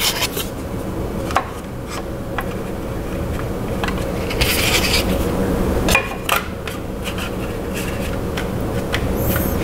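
Lasagna sheets being laid onto meat sauce in a ceramic baking dish and pressed flat by hand: scattered light clicks and taps with brief rubbing, over a steady low hum.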